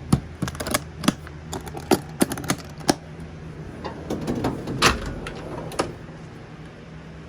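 Hand tools and spray guns clicking and clanking against the metal of a rolling tool cart: a run of sharp clicks, then a denser clatter with one loud knock about five seconds in. A steady low hum runs underneath.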